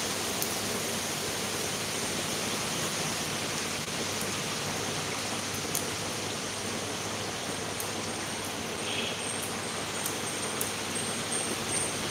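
Steady hiss of background noise, with a few faint sharp snaps as water spinach stems are broken by hand.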